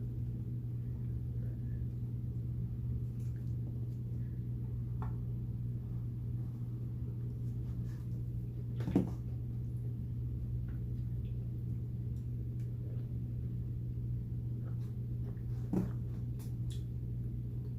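A few faint clicks and taps of utensils and takeout food containers while eating, the sharpest about nine seconds in, over a steady low hum.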